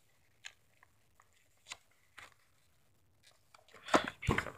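Paper poster being handled, rustling and crinkling: a few faint ticks, then a louder patch of rustling near the end.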